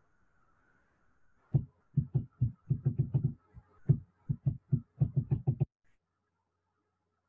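A quick, uneven run of about twenty dull, low taps or knocks over roughly four seconds, then they stop.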